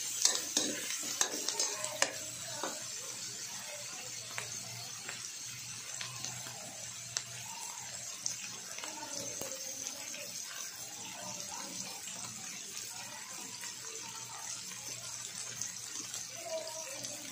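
Pork, onion and tomato sizzling in a steel wok, with a metal spatula scraping and clinking against the pan in the first couple of seconds. After that, steady sizzling and crackling of the frying food.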